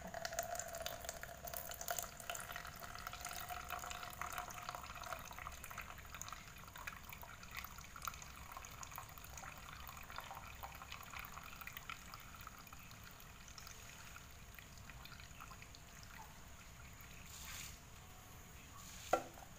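Water poured in a thin stream from a metal pan into a plastic mug, trickling and splashing steadily, then thinning to drips as the stream slows near the end.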